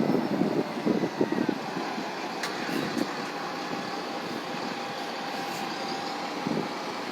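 Bus running with a faint steady whine under street-traffic noise. Wind gusts buffet the microphone during the first few seconds.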